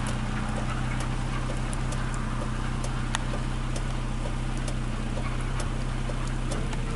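Narrow-gauge steam locomotive working hard as it hauls its train uphill, its exhaust beating at a few beats a second over a steady low rumble.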